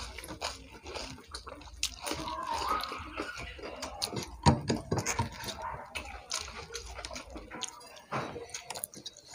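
Wet chewing and mouth smacks of people eating rice and chicken curry by hand, with fingers squishing and mixing rice on plates. It comes as a run of small clicks, with one sharper smack about four and a half seconds in.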